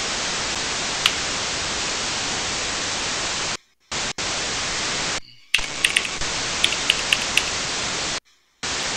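Open-squelch static from an RTL-SDR receiver on narrowband FM with no signal on the channel: a steady, loud hiss. It cuts out briefly twice as the frequency is changed, with a few short clicks in between.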